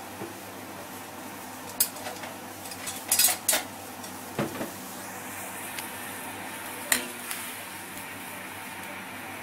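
Metal spatula clinking and scraping against a wok while stirring chicken wings in water. There are several sharp clinks, bunched about three seconds in, over a steady low hum.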